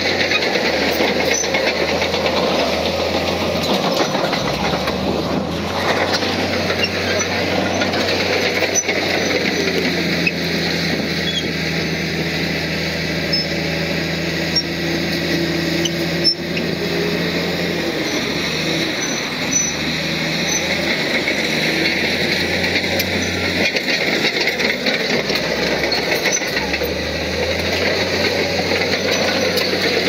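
Heavy diesel earthmoving machinery running steadily, with a rattling metallic clatter; a steady hum joins from about a third of the way in to past the middle.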